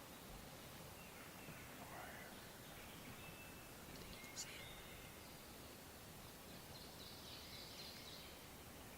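Near silence with faint distant birdsong: scattered high chirps and short calls, with a soft click about four and a half seconds in.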